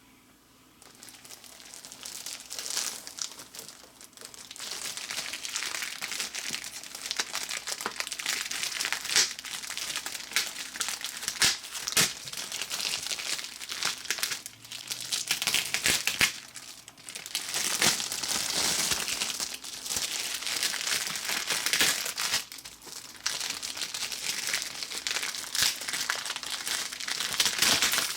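Packaging crinkling and rustling as it is handled and unwrapped, with many sharp crackles and clicks and a few brief pauses.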